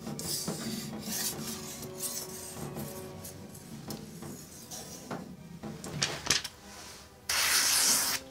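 Steel yanagiba sashimi knife blade stroked repeatedly across a wet whetstone, a rasping rub while the edge of the chipped knife is reground. Near the end comes a loud rustle of about a second as the blade slices through a sheet of paper to test the edge.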